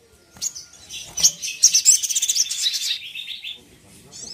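Brown-throated sunbird (sogon) singing: a dense burst of rapid, high chirps and trills starting about a second in and lasting some two seconds, with a few sharp clicks before it and fainter chirps near the end.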